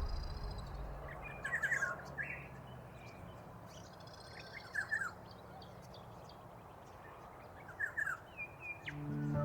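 Wild birds calling: three short bursts of quick chirps, about three seconds apart, over a faint outdoor hiss. Background music fades out at the start and swells back in at the end.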